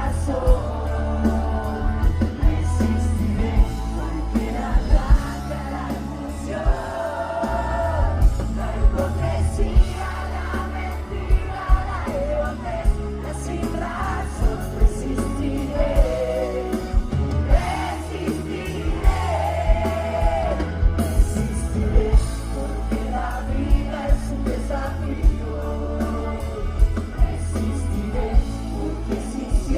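Live pop-rock band playing through a concert PA: a sung lead vocal over heavy bass and a steady drum beat.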